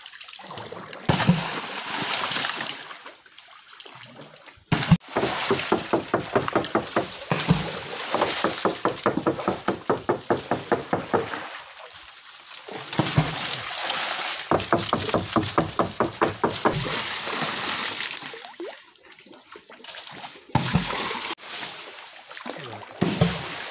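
A paddle beating the river surface beside a wooden dugout canoe in long runs of quick, regular strokes, about four a second, each throwing up a splash of water, to drive fish. The runs pause briefly three times.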